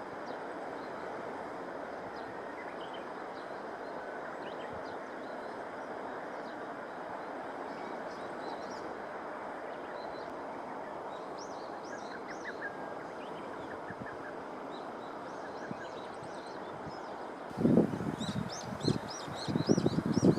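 Steady outdoor background hiss with faint, distant small-bird chirps. From about seventeen seconds in, loud irregular low rumbles of wind buffeting the microphone.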